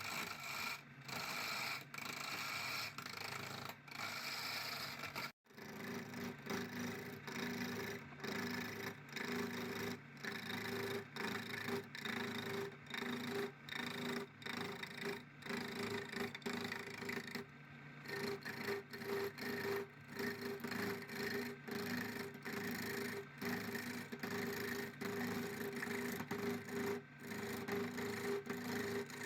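Rubbing and rasping sound, such as sanding or filing. After a sudden break about five seconds in, a steady hum from a running machine sits under the rubbing, interrupted by many short breaks.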